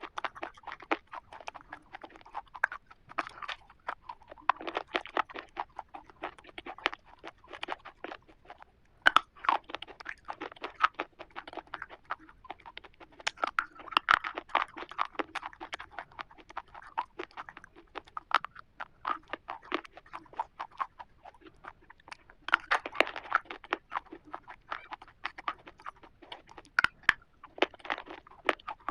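Close-up mouth sounds of a person biting and chewing a black KitKat chocolate wafer bar: dense, crisp crackling crunches of the wafer, coming in louder bursts with each new bite.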